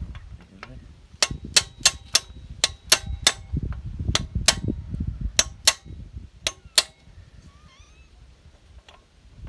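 A dry, unlubricated moving part squeaking sharply over and over, about two to three squeaks a second for several seconds, with a low rumble of the movement underneath. The squeak means the part needs lubricating.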